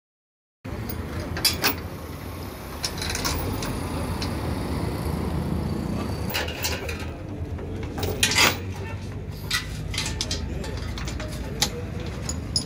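Scattered metal clinks and clanks of a recovery chain being handled against the underside of an overturned car, over a steady low outdoor rumble.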